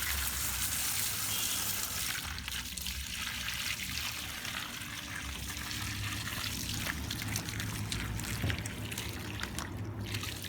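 Water spraying and trickling steadily, as in rinsing an air-conditioning unit during cleaning, with a low hum underneath.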